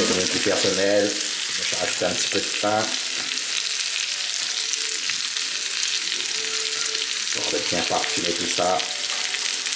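Smoked pork (boucané) and sliced red onion sizzling steadily as they fry in a stainless steel pot, stirred now and then with a wooden spatula.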